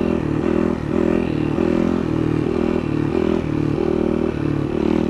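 Yamaha WR450F's single-cylinder four-stroke engine running at a steady throttle while the bike is held up in a wheelie, with an even pulsing about three times a second.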